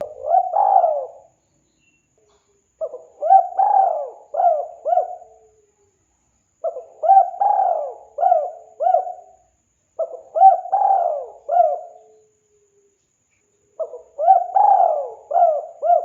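Spotted dove (tekukur) cooing: phrases of four or five short coos, a new phrase starting about every four seconds with silence in between.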